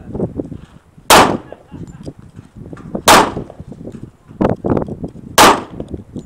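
.45 ACP pistol firing three shots about two seconds apart, each a sharp, loud report. A duller, weaker bang comes between the second and third.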